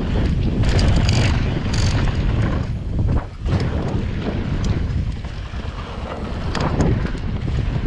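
Wind buffeting an action camera's microphone as a mountain bike rides fast down a dirt track, with tyre noise on loose dirt and a few sharp rattles from the bike about a second in, near two seconds in and again near seven seconds in.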